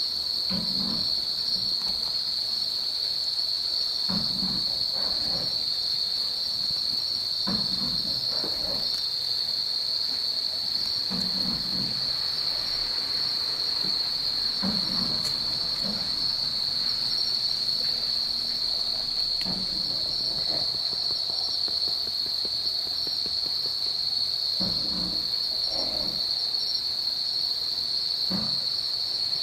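A dense chorus of night insects, a steady high-pitched trill that never breaks. Soft, low, short sounds come every few seconds beneath it.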